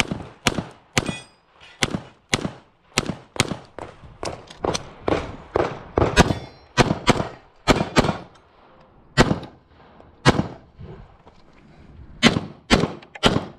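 Semi-automatic pistol fired rapidly in quick pairs, two or three shots a second. Firing stops for about a second after eight seconds in, and again for about two seconds before a final run of shots.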